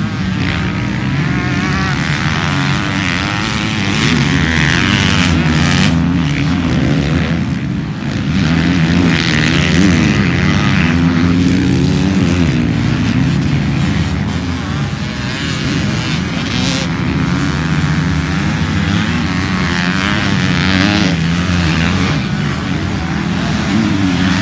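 Several motocross bikes riding a track, their engines revving up and dropping back over and over with overlapping, constantly changing notes.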